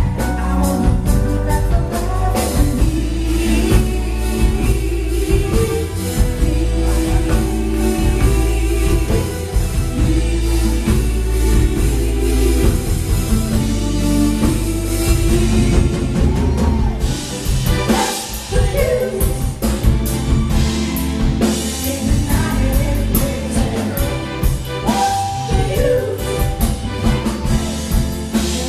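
Live band playing a song: drum kit, keyboard and electric guitar with singing over it.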